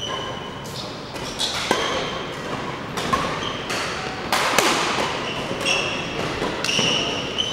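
Badminton rally: rackets striking the shuttlecock several times, with court shoes squeaking on the wooden floor, in an echoing sports hall.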